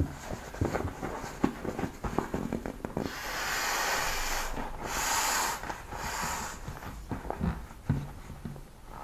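Air hissing out through the open valve of an inflatable vinyl camping pillow as it is squeezed, in three pushes of about a second each. Crinkling and rubbing of the pillow's plastic come before and after the pushes.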